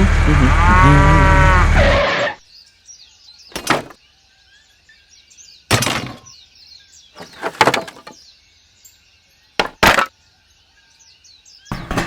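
A cow moos once over a loud low rumble, which cuts off about two seconds in. Then comes a quiet background of birdsong, broken by several sharp, loud bangs and crashes spread across the rest.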